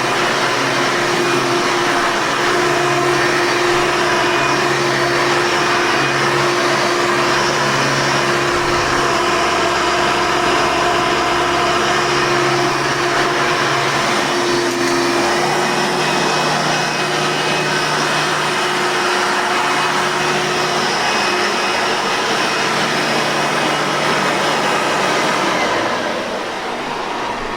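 Blue Hoover Soft N Light vacuum cleaner running steadily with a constant motor hum and airflow noise, winding down near the end as it is switched off.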